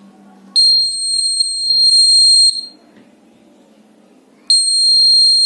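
Homemade magnetic door alarm's buzzer sounding a loud, steady, high-pitched tone twice, each about two seconds long: the alarm set off by the door opening and the magnet moving away from the sensor.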